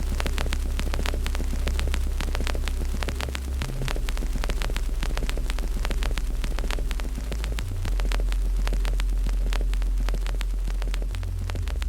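Wood fire in a fireplace crackling and popping with many quick, irregular snaps, over a deep low drone that shifts pitch a few times.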